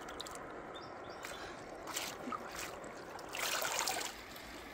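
Water splashing as a wicker basket of vegetables is dipped and rinsed in a shallow stream, with two short splashes about two seconds in and a longer, louder gush of water draining from the basket near the end, over the steady trickle of the stream.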